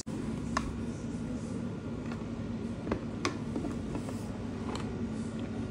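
A few faint, scattered clicks and taps of a clear plastic visor being handled against the side pivot mechanism of an Axxis motorcycle helmet, over a steady low hum.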